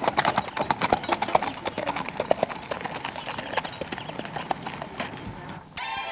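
Horses' hooves clip-clopping on hard ground: many quick, irregular strikes from more than one horse, fading toward the end.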